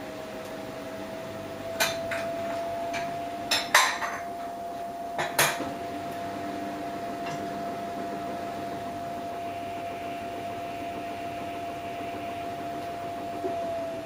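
Samsung Eco Bubble front-loading washing machine turning its drum: a steady motor whine that rises slightly at first and then holds. A run of sharp clinks and knocks about two to five and a half seconds in, loudest near four seconds, and one more a little later.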